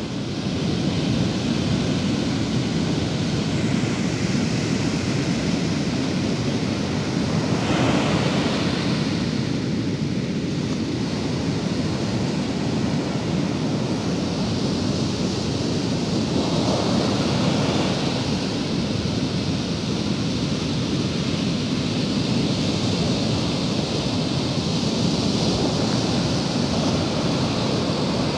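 Ocean surf breaking on a sandy beach: a continuous rush of waves that swells louder about eight seconds in and again around seventeen seconds as bigger waves break. Wind on the microphone adds a low rumble.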